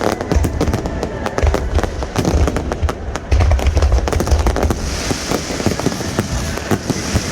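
Finale fireworks: a rapid, continuous barrage of aerial shell bursts and crackling, with deep booms coming in waves and a thick hiss of crackle stars in the second half.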